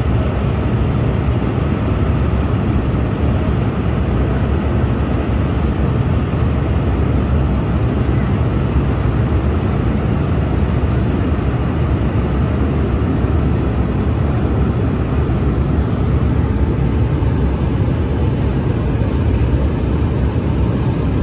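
Steady cabin noise of an Embraer 195-E2 airliner in descent: airflow and the hum of its Pratt & Whitney PW1900G geared turbofans heard from a window seat, deep and even, with no change in level.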